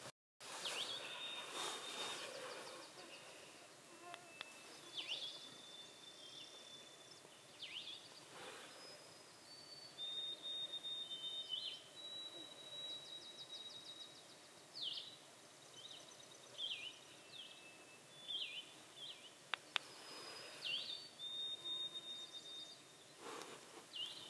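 Small birds singing and calling, faint: short whistled notes, quick sweeping chirps and brief trills at scattered intervals over a light background hiss.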